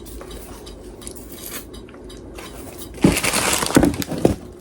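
A boxed laptop and its packaging being handled: faint rustling, then a quick run of sharp clicks and knocks about three seconds in.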